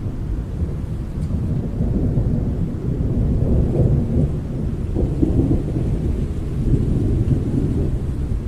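Thunder rumbling low and continuously, swelling for a few seconds in the middle, with rain in the background.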